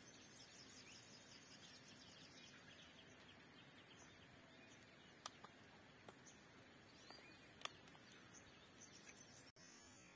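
Faint open-air ambience: distant birds chirping and a thin, steady high insect whine over a soft background hiss, with a few brief sharp clicks about halfway through and again about 7.5 seconds in.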